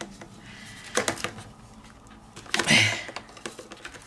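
Handling noise from a plastic salad spinner basket as a gloved hand presses a paper circle and tape into it: a couple of light plastic clicks about a second in, then a brief rustling scrape near three seconds.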